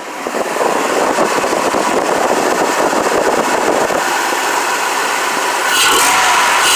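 Chevrolet 454 (7.4 L) fuel-injected V8 in a 1998 K3500 pickup running under throttle, freshly fitted with Bosch Mustang GT fuel injectors. It rises in level as the gas is pressed and gets louder again about six seconds in.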